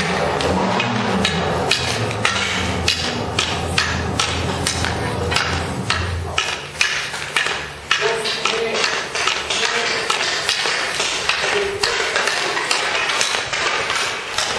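Many sharp, irregular clacks of hockey sticks striking pucks during an ice hockey drill, several a second and overlapping, over a low hum that stops about halfway through.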